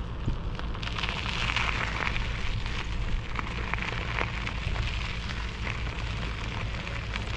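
Bicycle tyres rolling over a gravel road, a steady crunching crackle, with a low wind rumble on the microphone.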